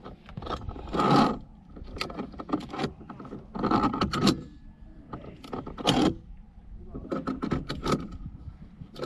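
Via ferrata carabiners clinking and scraping along the steel safety cable as a climber pulls himself up, in several short bursts over a low rumble.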